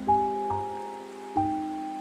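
Background music: a slow, gentle melody of single struck notes that ring and fade, a new note about every half second to second.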